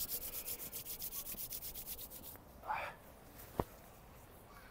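Palms rubbed briskly together, quick even strokes about ten a second, stopping a little over two seconds in. A short soft noise and a single sharp click follow.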